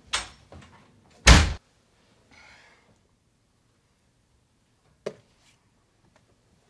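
A room door slammed shut: one loud, sharp bang about a second in. A small faint knock follows near the end.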